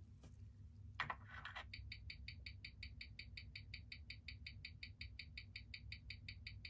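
Ticking of a 1970s Certina DS-2 mechanical watch movement, played through a timegrapher's speaker. The ticks come evenly at the watch's 19,800 beats per hour, about five and a half a second, after a short clatter about a second in. The timegrapher reads the amplitude as low, which a new mainspring could fix.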